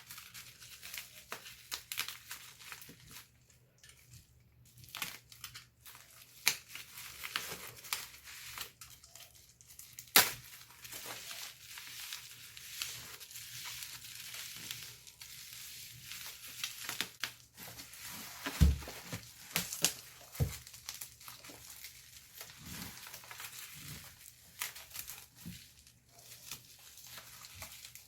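Packaging being handled and opened: wrapping crinkling and tearing, with frequent small clicks, a sharp snap about ten seconds in and a couple of dull knocks past the middle.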